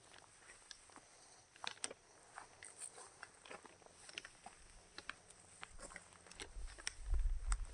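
Footsteps crunching on dry gravel and stones: scattered, irregular crackles and clicks. A low rumble comes in near the end and is the loudest part.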